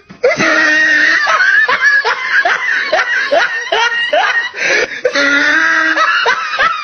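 Snickering laughter: a run of short rising laughs, about two or three a second, between about one and four and a half seconds in, over a steady held tone.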